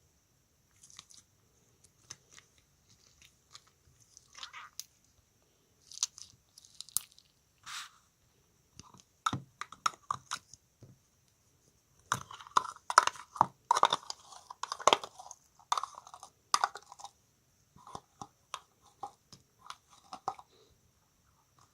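Slime being squished and pressed: irregular sticky clicks and crackles, thickest and loudest in a busy stretch around the middle.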